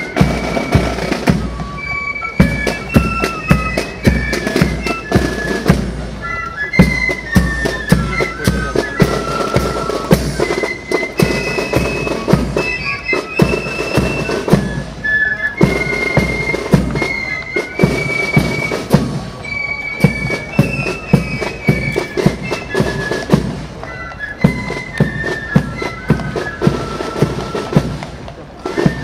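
Background music: a high piping melody of held notes with quick ornaments over a steady drum beat.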